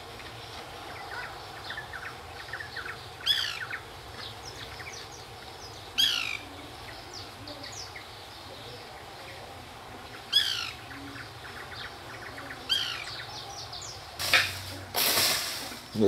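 A bird calling: a loud call that falls steeply in pitch, given four times, about every three seconds, over softer chirping from other birds. Shortly before the end there is a brief scratchy rustling noise.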